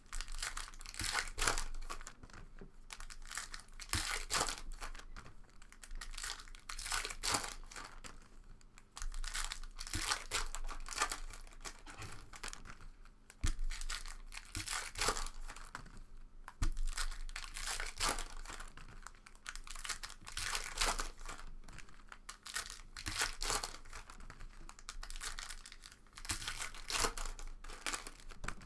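Foil trading-card pack wrappers being torn open and crinkled by hand, in many short, irregular rustling bursts.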